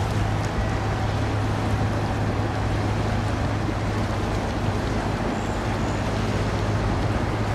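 A steady low mechanical hum under a continuous rushing noise, with no change in level.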